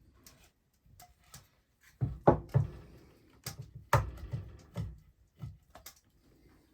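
A run of knocks and thumps as things are handled and set down in a small room, closely spaced from about two to five seconds in, then a few fainter clicks.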